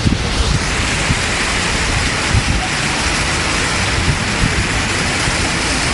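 Water from a grid of ground-level fountain jets spraying and splashing onto paving: a steady, rain-like hiss, with occasional low bumps.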